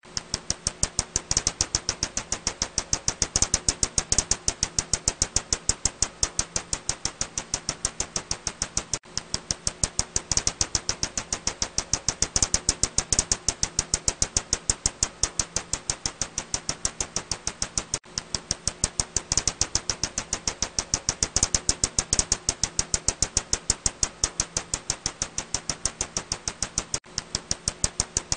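Ussuri bat echolocation calls, brought down into the audible range, heard as a fast, even train of clicks. There is a brief break about every nine seconds, and a faint low hum underneath.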